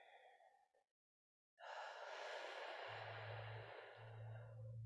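A woman's long, soft exhale, a breathy rush that starts about one and a half seconds in and fades away over about three seconds, after a brief faint breath at the start. A low steady hum comes in about halfway through.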